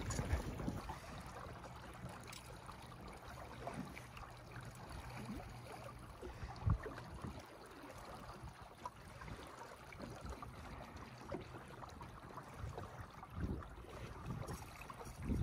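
Faint, steady flowing river water with light gurgling, and one soft thump about seven seconds in.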